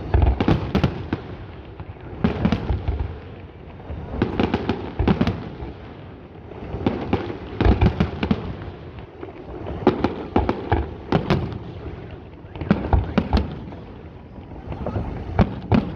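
Fireworks display: aerial shells bursting in volleys, a cluster of sharp bangs every two to three seconds.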